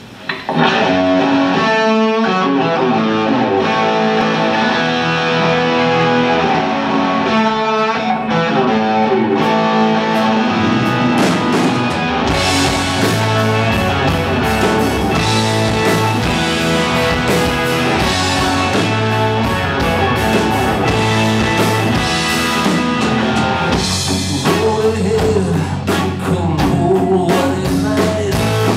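Rock band playing live on two electric guitars and a drum kit. The music starts abruptly about half a second in and grows fuller and heavier in the low end about twelve seconds in.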